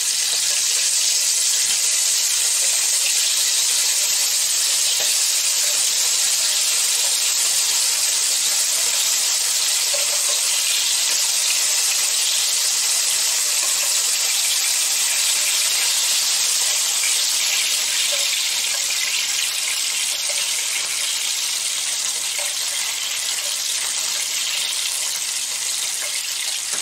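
Anchovy fillets and a garlic clove sizzling in hot olive oil in a frying pan, a steady hiss as the anchovies melt down in the oil. The hiss eases a little past the middle.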